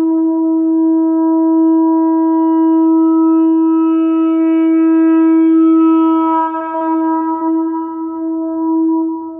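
Shofar sounding one long, unbroken blast at a steady pitch. Its brighter upper tones thin out and the level wavers over the last few seconds.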